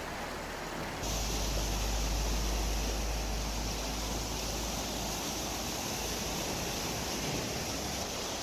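Rushing floodwater: a steady, loud noise of fast-moving water. About a second in the sound changes abruptly and gets louder, with a deep rumble underneath that fades after about five seconds.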